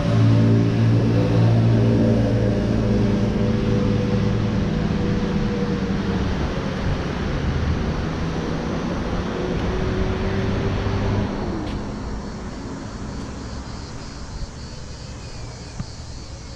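A motor vehicle's engine running close by with a steady low hum, dying away after about eleven seconds.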